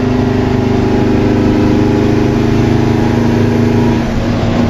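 Straight-piped Detroit two-stroke diesel of a lifted 1985 fire truck running under load on the road, heard from inside the cab as a steady drone. The engine note briefly drops about four seconds in, then picks up again.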